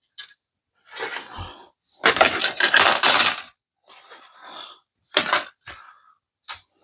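Hard plastic kit parts and sprues clattering and rustling as they are handled and set down, in a few irregular bursts with the longest a little after two seconds in and some sharp clicks near five seconds.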